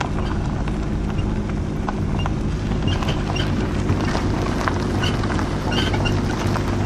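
A vehicle running with a steady low hum, with short high squeaks and light clicks at irregular moments over it: the unwanted squeak of the title.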